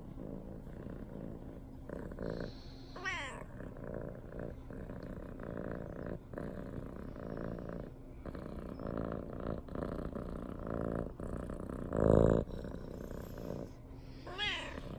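Brown tabby cat purring steadily while her head is stroked. There is a brief louder sound about twelve seconds in.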